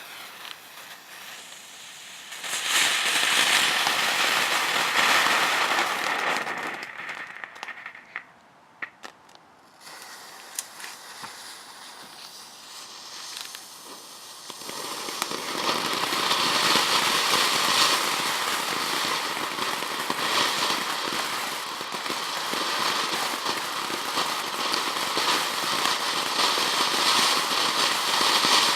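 Consumer fireworks burning with a dense hissing crackle in two long spells: one from about two to seven seconds in, then a quieter gap with a few scattered pops, then a longer spell from about fifteen seconds in to the end.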